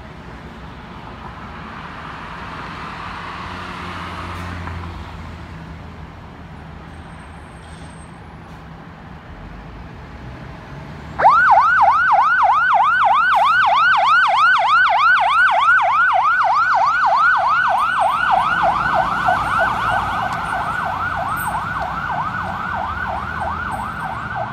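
Road traffic noise, then about halfway through a fire engine's electronic siren switches on suddenly in a fast yelp, rapid rising-and-falling sweeps about three times a second, as the engine pulls out on an emergency call. The siren eases slightly towards the end as the truck drives away.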